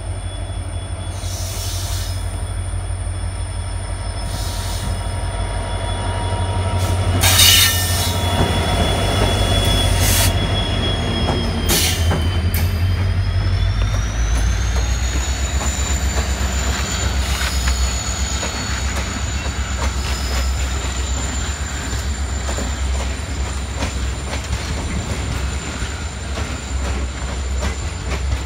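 Passenger train of ICF coaches running past close by: a steady low rumble with repeated knocks of wheels over rail joints and points, the loudest a sharp clank about seven seconds in. A high wheel squeal runs over the top and slides up in pitch about halfway through, then holds.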